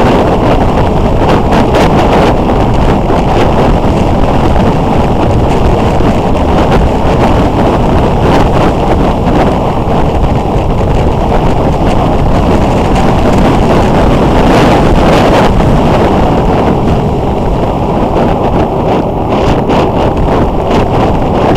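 Steady wind rush on the microphone of a camera mounted on a moving motorcycle, with the motorcycle running underneath at road speed.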